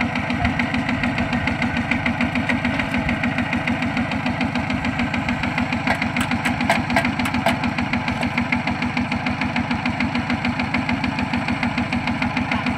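Single-cylinder diesel engine of a two-wheel walking tractor running steadily with a fast, even beat. A short run of light metal clicks comes about halfway through.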